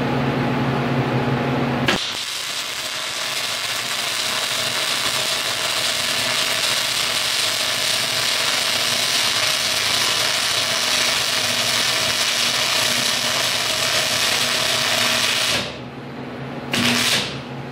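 MIG welding arc running on steel plate: after a low hum, the arc strikes with a click about two seconds in and gives a steady hiss for about thirteen seconds as a bead is laid. It stops, then a second short burst of welding near the end.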